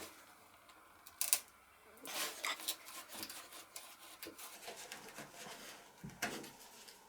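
Small handling noises: a sharp click about a second in, then light scraping, rubbing and small ticks, and a short knock near the end.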